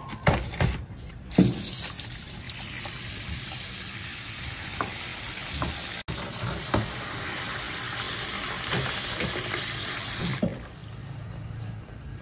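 A few sharp knocks, then a kitchen tap runs steadily, splashing into a bowl of iced water as a piece of raw puffer fish fillet is rinsed by hand under it. The water starts about a second and a half in and stops near the end.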